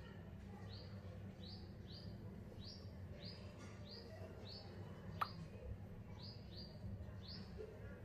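Faint bird chirping, short high notes repeated about twice a second, over a low steady hum. A single sharp click about five seconds in.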